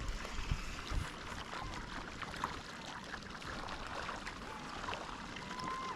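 Steady rush of moving water and wind at the sea, with faint scattered ticks, and a thin held tone starting near the end.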